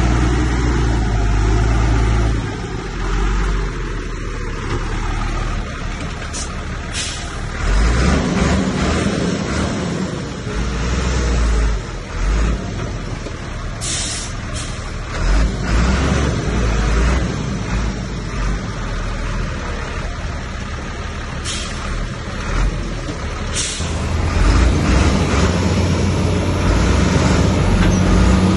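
Heavy diesel earthmoving machinery running, its engine swelling and easing in level, with several short, sharp bursts spread through the middle.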